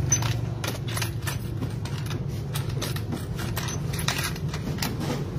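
Light metallic clicks and taps, irregular and many, from hands handling and fitting parts on a Honda Click 125 engine's cast-aluminium crankcase during reassembly.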